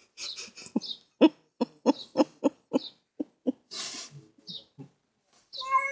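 A person laughing in a run of short, breathy bursts, about four a second, with a longer, higher held vocal sound near the end.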